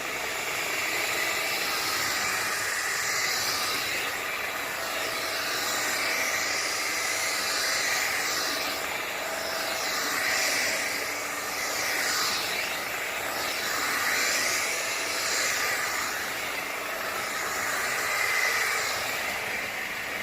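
Hoover ONEPWR FloorMate Jet cordless wet-dry floor cleaner running: its suction motor and brush roll make a steady hissing whir that swells and eases every couple of seconds as it is pushed back and forth over tile.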